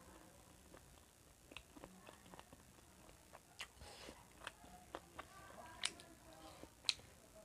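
Quiet eating sounds from someone eating chicken feet by hand: scattered wet mouth clicks and smacks, with a few sharper clicks in the second half.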